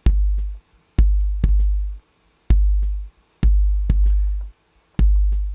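Kick drum loop with a deep 50 Hz sine tone from a gated oscillator riding under each hit, keyed open by the kick and held for most of a second before it cuts off. With the long release it sounds like an electronic drum kit: about seven kicks in an uneven pattern, each with a long booming tail.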